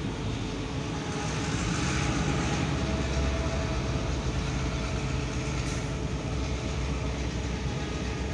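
Diesel-electric locomotive approaching slowly along the track, its engine giving a steady low rumble that grows a little louder after about a second.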